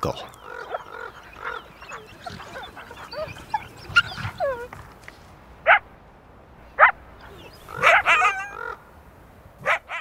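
Coyotes whining and yipping over a carcass, with several short, sharp yelps in the second half.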